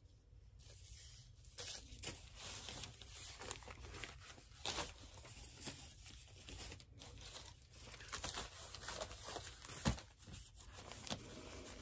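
Thin plastic tablecloth rustling and crinkling as it is handled and unfolded, with scattered light taps, the sharpest near the end.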